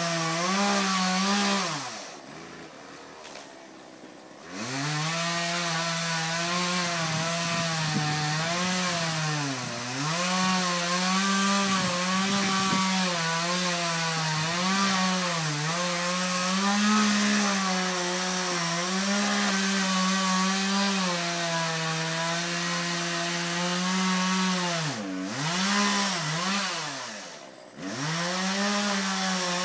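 Chainsaw running hard and cutting wood, its engine note wavering under load. About two seconds in, the engine note drops away for a couple of seconds, then comes back up, and it dips briefly twice near the end.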